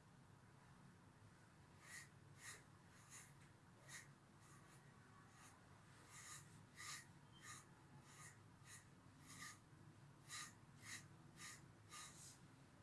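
Faint brush strokes through a long-haired dog's coat, a short scratchy swish roughly every half second, starting about two seconds in.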